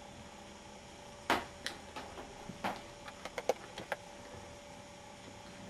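Kittens scuffling in a plush cat bed: a cluster of short scratches and ticks from about one to four seconds in, over a faint steady hum.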